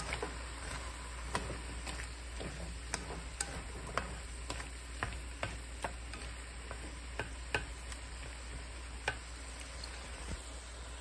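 Bitter melon and egg sizzling in a wok while wooden chopsticks stir them, clicking irregularly against the pan; the clicks thin out near the end.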